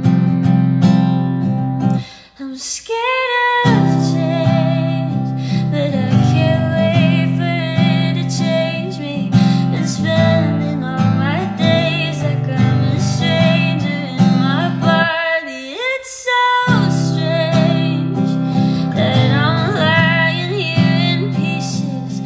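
Acoustic guitar playing chords while a woman sings a slow song. Twice the guitar breaks off for a second or so, leaving her voice alone on a held note.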